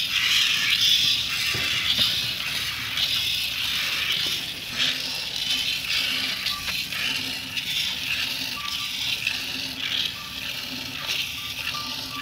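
Milk squirting from a cow's teats into a plastic pail during hand-milking: rhythmic hissing squirts, about two a second.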